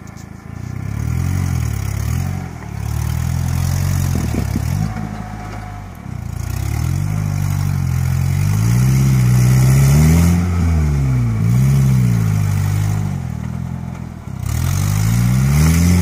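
Suzuki Vitara's engine revving up and down in repeated swells as it pulls through deep mud, loudest in the middle, with short lulls between the pushes.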